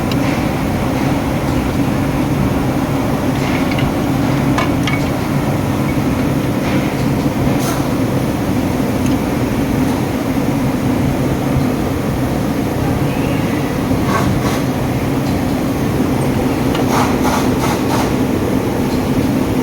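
Steady low machine hum in a workshop, with scattered clicks and knocks of metal parts and tools being handled during engine teardown, a quick cluster of them near the end.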